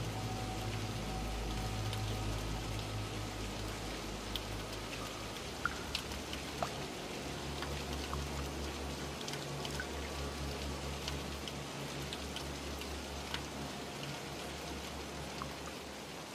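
Recorded rain and water ambience: a steady hiss with scattered drips, over a low humming drone that drops in pitch about five seconds in.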